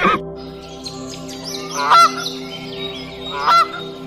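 Two short animal calls about a second and a half apart, each rising sharply in pitch and then held for a moment. Small birds chirp high in the background over a steady low hum.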